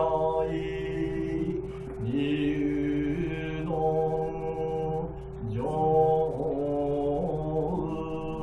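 A voice chanting long, drawn-out notes that slide in pitch between them, over a steady unbroken drone tone.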